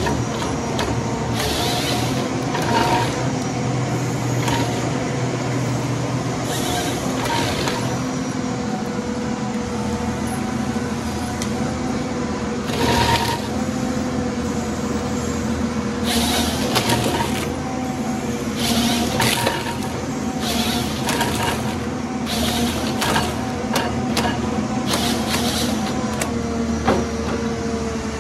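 John Deere 1270G harvester running steadily, its engine and hydraulics giving a low rumble with a steady whine, broken by about a dozen short bursts of noise as the harvester head grips and works the logs.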